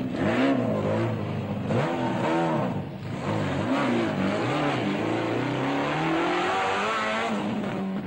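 Ford Escort rally car engine revving through a hairpin: the pitch rises and falls several times in the first three seconds as the throttle is lifted and reapplied, then climbs slowly in one long pull until just before the end.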